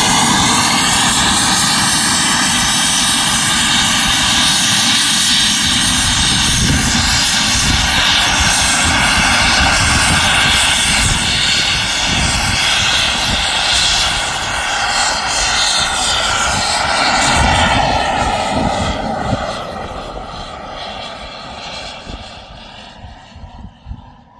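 Turbine engine of a radio-controlled model jet: a high turbine whine over a rushing jet exhaust as the plane flies close. It then fades steadily over the last six seconds as the jet flies off into the distance.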